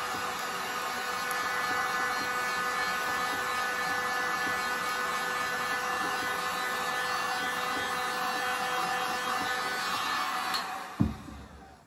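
Corded electric heat gun running steadily, its fan blowing with a constant motor whine as it heats shrink wrap on a tumbler. It is switched off near the end and spins down, and a single thump follows.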